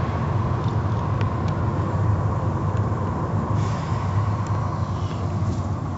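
Automatic car wash machinery running, heard from inside the car: a steady low rumble with a steady hum over it, and brief hissing swells about three and a half and five seconds in.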